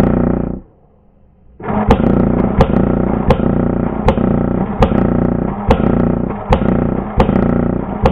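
ARP 556 airsoft electric rifle firing on full auto: a short burst, then after about a second a long burst of several seconds. It sounds as a steady buzz from the motor and gearbox cycling, with sharp clicks under a second apart, and cuts off sharply near the end.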